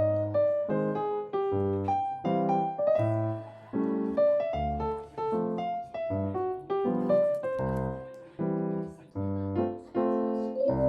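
Background music: an electric piano or keyboard tune with a bass line and a steady beat.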